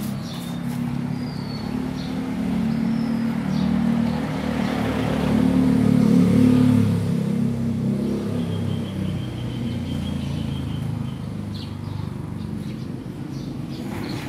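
A motor vehicle's engine passing close by on the street, growing louder to about six seconds in and then fading away.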